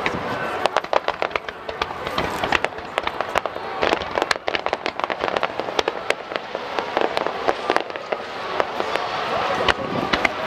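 Aerial fireworks bursting in a rapid, irregular run of sharp cracks and bangs, with no pause.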